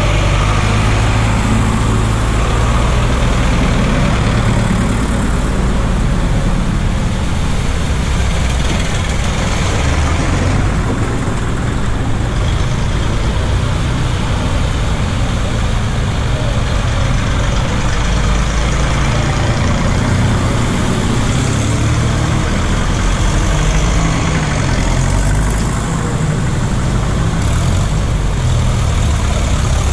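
A line of vintage farm tractors driving slowly one after another through a shallow ford. The engines run steadily at low revs, a green John Deere loudest as it passes close near the start, with water washing around the wheels.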